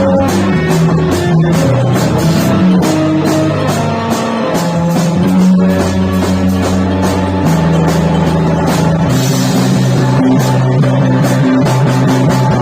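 A rock band rehearsing a krautrock-style psychedelic piece: guitar and drum kit playing a steady beat over long held low notes that shift pitch every second or two.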